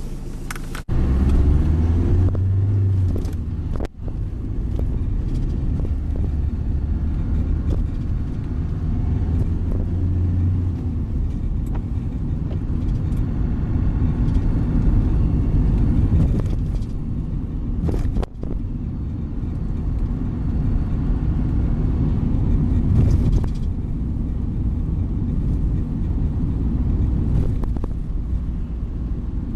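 Engine and road noise heard from inside a moving vehicle: a deep engine rumble as it pulls away from traffic lights, then steady running with tyre noise.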